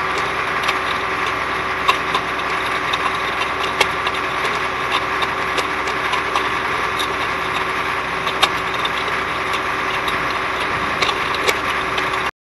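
CAT 14G motor grader running as it rolls over the gravel strip, a steady engine and drivetrain noise with irregular sharp clicks and crackles of small rocks under the big front tire. The sound cuts off suddenly near the end.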